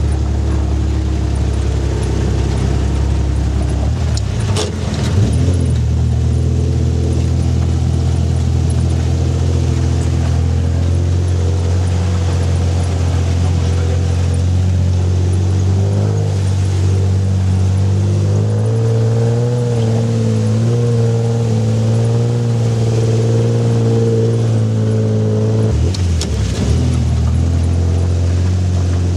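Off-road 4x4 vehicle engine running under load in mud, its pitch stepping up and down a few times as the revs change. There is a brief knock about four and a half seconds in and another near the end.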